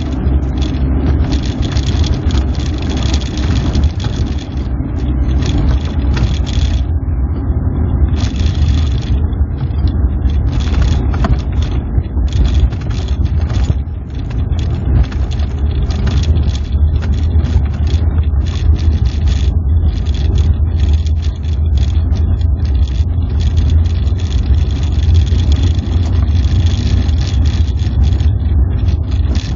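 Moskvitch 412 being driven, its four-cylinder engine and road noise heard from inside the cabin as a steady low rumble.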